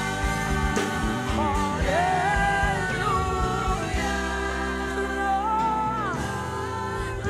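Gospel worship song: voices singing drawn-out "hallelujah" phrases over a live band with keyboard chords and bass.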